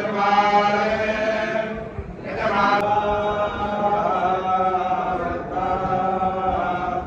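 Vedic recitation (Veda parayanam): several voices chanting verses together in long, held phrases, with a brief pause for breath about two seconds in.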